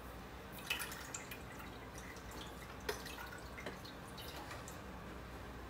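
Chicken broth poured from a carton into a pan of sauce, with faint, irregular dripping and splashing.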